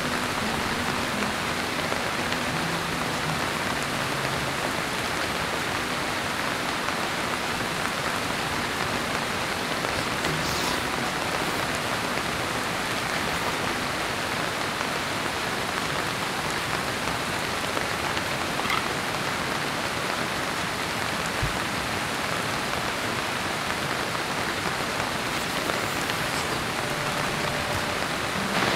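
Heavy rain falling steadily in a downpour.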